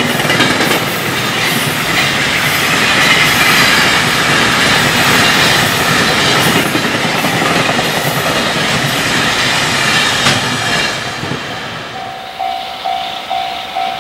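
Long container freight train passing at speed, with a dense rumble and wheel clatter on the rails. About twelve seconds in the train noise drops away and a level-crossing warning bell rings, dinging about twice a second.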